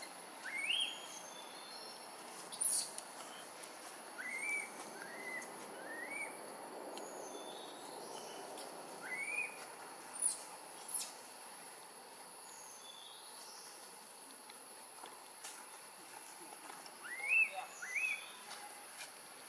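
Forest ambience: a steady high insect buzz, with short, sharply rising whistled calls every few seconds, several close together and a pair near the end.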